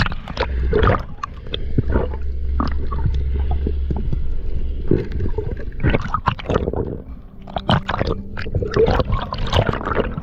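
Water splashing and gurgling close by in irregular bursts, with a low rumble in the first few seconds.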